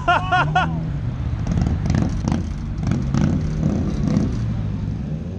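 Motorcycle engines running slowly near idle as riders creep along a slow-race course, a steady low rumble. A person's voice calls out briefly in the first second.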